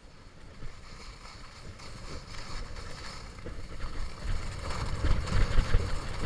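Skis hissing and scraping over groomed snow on a downhill run, with wind rumbling on the microphone. Both get louder from about four seconds in as speed picks up.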